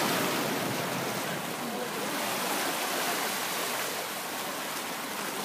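Seawater washing up and back over algae-covered shore rocks, a steady rush of water that eases slightly after the first second.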